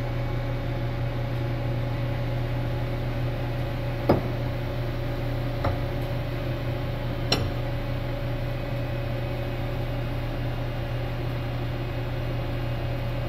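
Arbor press ram pushing a spring-steel piston pin retainer into its bore in a Detroit Diesel piston, giving three short sharp metallic clicks a second or two apart, the first the loudest, as the retainer is dished in to seat. A steady machine hum runs underneath.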